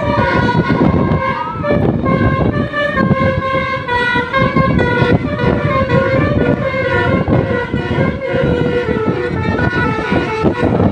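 Indonesian bus 'telolet' horn: a multi-tone air horn playing a melody of held notes that change about twice a second, with a vehicle running underneath.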